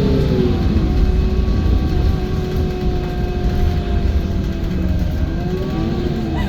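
Menarinibus Citymood 12 CNG city bus driving: a low rumble with a whine whose pitch drops about half a second in, holds steady, then dips and rises again near the end, as the bus slows and picks up speed.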